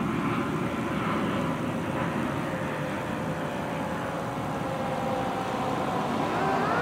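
Steady traffic and engine rumble as a KME fire engine approaches on an emergency response, with a faint siren tone slowly falling in pitch and beginning to rise again near the end.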